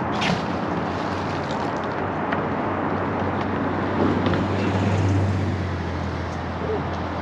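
Wind buffeting the microphone, with a steady low engine-like hum that swells about four seconds in and eases off again, and a sharp click just after the start.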